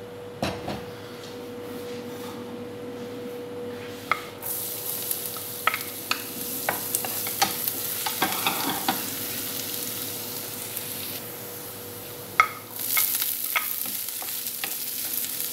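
Minced garlic sizzling in hot oil in a nonstick frying pan, stirred with a wooden spatula that clicks and scrapes against the pan. The sizzle starts about four seconds in as the garlic goes into the oil, and grows louder near the end as chopped red onion is tipped in.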